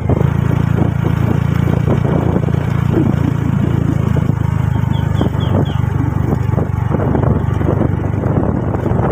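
Motorcycle engine running steadily under way, with a constant low rumble of wind and road noise.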